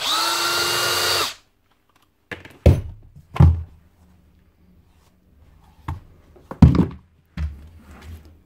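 Cordless drill-driver spinning out a screw from the handle of a Hilti TE 905 demolition hammer for just over a second, its motor pitch rising briefly as it starts and then holding steady. Then a handful of sharp knocks, the loudest about two-thirds of the way through, as the handle and plastic housing cover are pulled off and handled.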